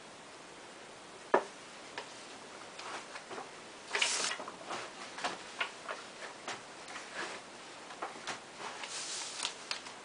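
Scattered soft ticks and rustles, with a sharp click about a second in, from a twisted tissue being worked into a nostril to set off a sneeze. Two short breathy sniffs through the nose come about four and nine seconds in.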